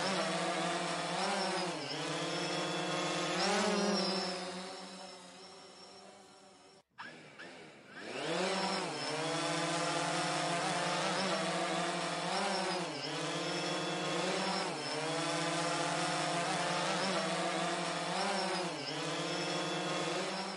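FPV drone motor whine sound effect: a steady buzzing whine whose pitch dips briefly about every two seconds, like throttle blips. It fades away around five seconds in, cuts off, and starts again about a second later.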